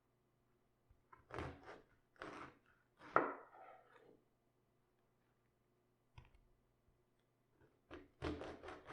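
Crisp crunching strokes and light thunks of cabbage being handled and cut: a cluster of three strokes in the first few seconds, a single knock about six seconds in, and another run of strokes near the end.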